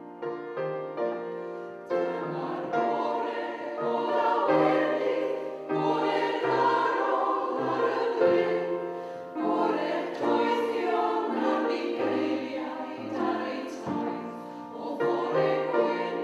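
A choir singing in harmony, several voices holding sustained notes that change every second or so.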